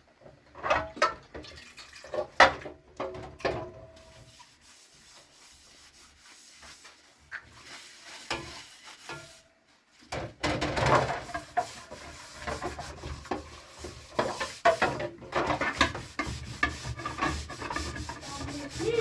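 Household handling sounds: a few sharp knocks and clatters of kitchen things, then from about ten seconds in a busy stretch of rubbing and scraping with scattered knocks.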